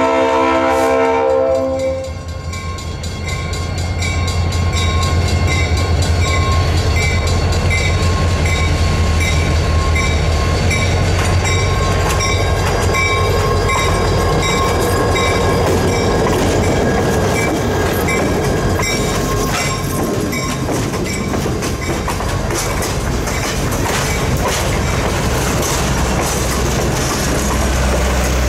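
Diesel locomotive horn sounding and cutting off about two seconds in, then the locomotive's engine rumbling loudly as it passes close by, with a grade-crossing bell ringing in steady, even strokes. Later the passenger coaches roll past, their wheels clicking over the rail joints.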